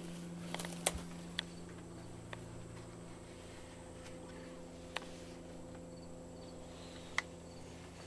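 Quiet background with a steady low hum, broken by a few sharp small clicks and taps. The loudest comes about a second in, and there are single ones later.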